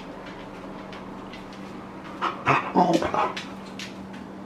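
A Boxer dog gives a short burst of vocalizing, a few quick pitched yelps and barks, about two seconds in and lasting about a second.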